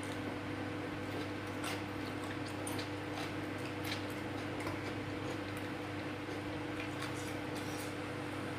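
A person eating rice and side dishes with their fingers from a plastic plate and chewing: faint, scattered small clicks and smacks over a steady low hum.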